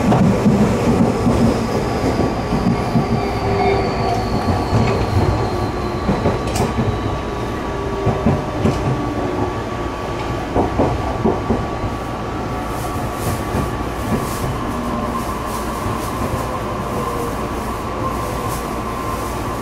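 Tobu Noda Line electric commuter train running, heard from inside the carriage: a steady rumble of wheels and running gear with a constant whine, and scattered clacks over rail joints. A high whine falls slowly in pitch in the first few seconds. From about two-thirds of the way through, a higher hiss and squeal comes in as the train pulls in alongside a station platform.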